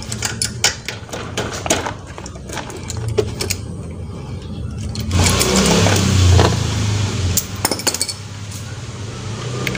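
Metal clinks and clicks of hand tools as a spark plug is taken out of a scooter engine, over a steady low hum that swells for a couple of seconds past the middle.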